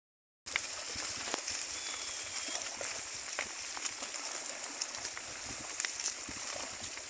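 Herd of pigs foraging through water hyacinth and wading in a pond: scattered rustling, crunching and splashing clicks over a steady high hiss.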